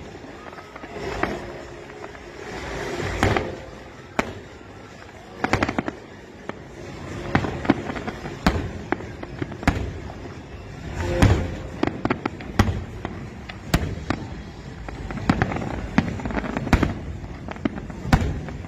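Aerial fireworks shells bursting in an irregular series of sharp bangs, with crackling in between.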